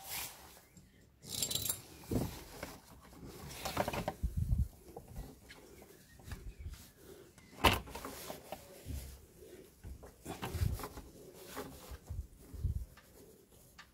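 Plastic quick-connect coupling of a radiator coolant hose being pushed by hand onto the radiator outlet, with rubbing and handling noises and one sharp click about eight seconds in as it locks into place.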